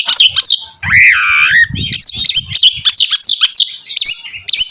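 Oriental magpie-robin (kacer) singing a rapid, varied song of sharp whistled notes, with one longer, lower wavering note about a second in.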